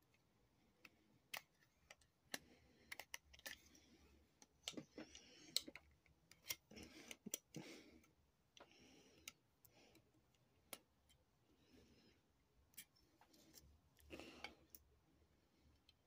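Faint, irregular clicks, taps and short rustles of a cardboard box and plastic packaging being handled, busiest in the middle and again near the end.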